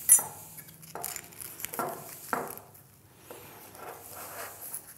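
Hands working a padded camera-holster belt: a sharp tap at the start, then scattered rustles and scrapes of fabric and Velcro as the flat tension spring is pushed back and forth between the Velcro layers.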